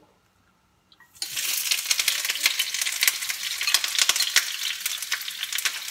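Sliced onion tipped into hot rice bran oil in a frying pan, sizzling suddenly about a second in and then sizzling steadily with crackles.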